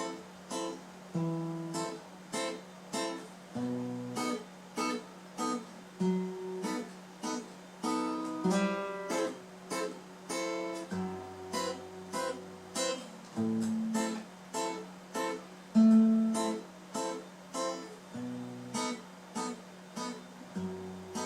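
Acoustic guitar playing a song's instrumental introduction: chords picked in a steady rhythm over bass notes.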